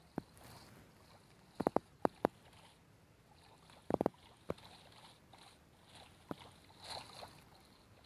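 Sea water sloshing faintly, with scattered sharp knocks, some coming in quick pairs and triples.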